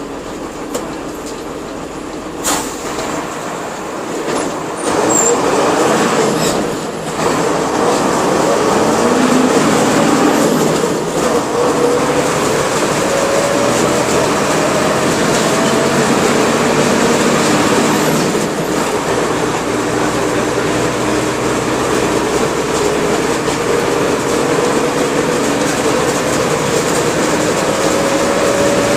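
Mercedes-Benz OF-1721 bus with its OM-366LA turbo-diesel six running under way. The level climbs a few seconds in and dips briefly once, and a whine rises slowly in pitch as the bus gathers speed.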